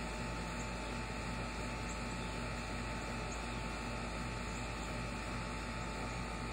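Steady background hum and hiss with an even, unchanging level, and a faint short high chirp now and then.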